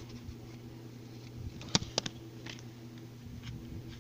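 Two sharp clicks of plastic packaging being worked open, close together about two seconds in, followed by a fainter click, over a steady low hum.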